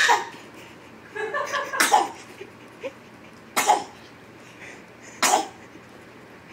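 A ten-week-old kitten sneezing three times, short sharp sneezes about a second and a half apart, with a few soft small sounds just before the first.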